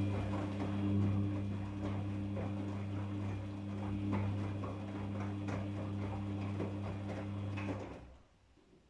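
Daewoo DWD-FT1013 front-loading washing machine running with a steady low hum and a crackling rattle, which cuts off abruptly about eight seconds in.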